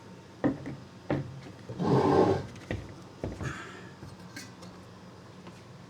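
Handling noises: several light knocks and a louder rubbing scrape about two seconds in.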